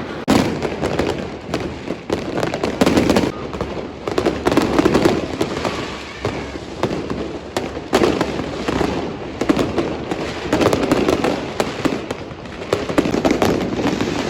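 Fireworks going off all around: many sharp bangs and crackles in quick, uneven succession, over a steady din of other distant blasts.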